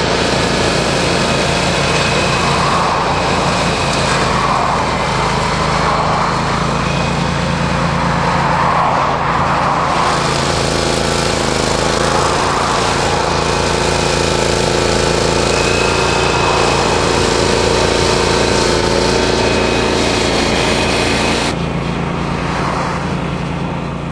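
Scamper walk-behind flail mower running steadily, its petrol engine note under the noisy rush of the flail rotor cutting long grass. About 21 s in the sound drops in level and loses its highs.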